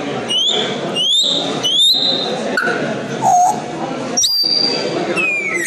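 African grey parrot whistling: three quick rising whistles, then a lower note, a sharp high whistle held briefly, and a falling whistle near the end, over a steady background murmur.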